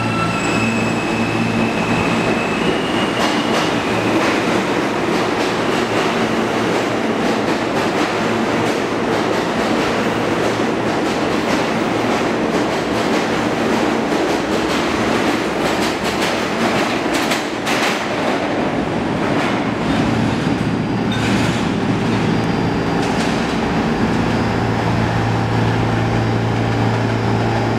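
An R160 New York City Subway train pulls out of the station. Its electric motors give a stepped, rising whine at first, then the wheels clatter over the rail joints as the cars pass. Past about twenty seconds the rush thins out, leaving a steady low hum.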